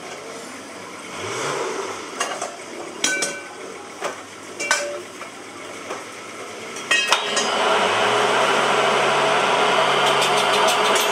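Sharp metal clanks and clinks as a steel truck wheel rim is handled and clamped on a lathe chuck, several of them ringing briefly. About seven seconds in, after a couple of louder clanks, the lathe's motor starts and runs with a steady hum, spinning the rim.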